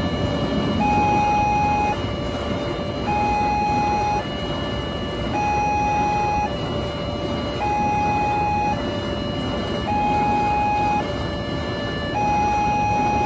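Railway level-crossing warning siren sounding a shrill two-tone alarm, alternating between a higher and a lower tone about a second each, over the rumble of tank wagons passing in the first seconds.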